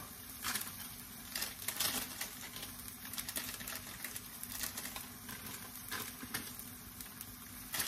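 Pork cubes frying gently in a nonstick wok over a low gas flame: a faint, steady sizzle with scattered ticks and crackles.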